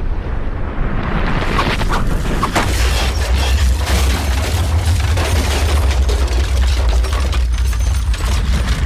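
Volcanic eruption: a loud, continuous deep rumble with crackling on top, building over the first two seconds and then holding steady.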